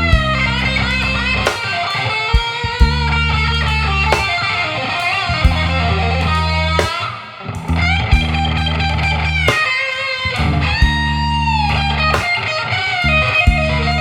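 Electric guitar playing a slow blues solo with bent, sliding notes, over a backing of sustained bass notes and a steady drum beat.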